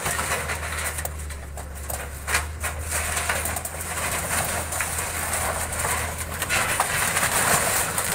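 Wheel loader's diesel engine running with a steady low hum as its bucket pushes into timber formwork and rebar, with repeated cracks and clatter of breaking boards and steel.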